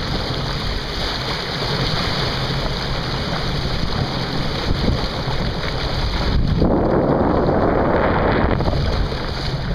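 Boat under way across open water: wind buffeting the microphone and water rushing past the hull over a steady low rumble. About two-thirds of the way through, a louder rushing surge lasts nearly two seconds.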